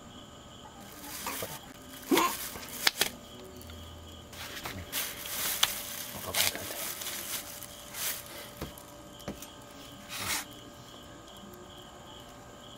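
Plastic bag rustling and a few sharp clicks and knocks as peeled kiwis and a folding multitool knife are handled on it, loudest about 2 and 3 seconds in. Crickets chirp steadily underneath.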